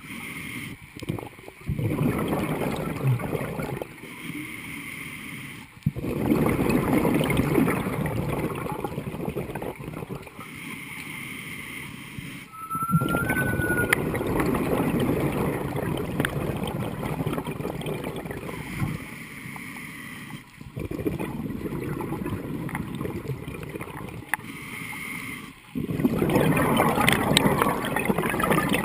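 Scuba diver breathing through a regulator underwater: loud rushing bursts of exhaled bubbles, each lasting a few seconds and starting abruptly, about every five to six seconds, with quieter pauses between.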